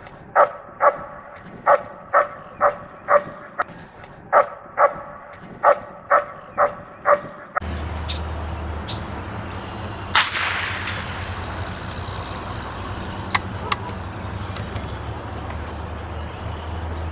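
A dog barking repeatedly, about two barks a second, for the first seven and a half seconds. Then the sound cuts to open-air ambience with a steady low rumble and a single sharp crack about ten seconds in.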